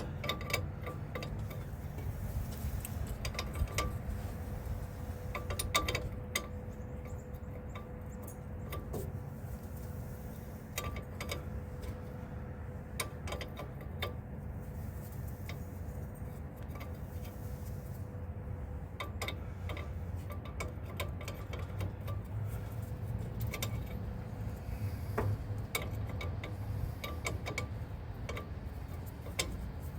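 Scattered metallic clicks and clinks of hand wrenches working on brake line fittings, irregular throughout, over a steady low rumble.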